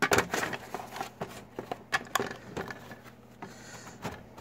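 Handling noise from a metal tool-chest drawer: packing foam and wrapping rustling and crackling, with small items clicking and knocking against the drawer, in short irregular bursts.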